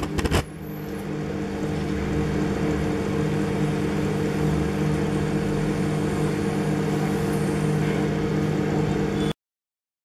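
Microwave oven running: a steady low hum, with a few sharp clicks at the very start. The hum cuts off suddenly about nine seconds in.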